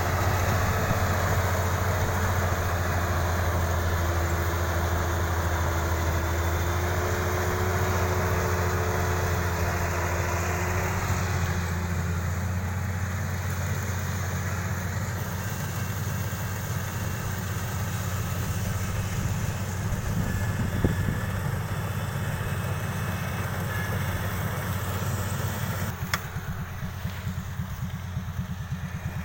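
Kubota DC-35 combine harvester's engine running steadily under a low, even hum. A few seconds before the end there is a click, and the sound drops somewhat quieter.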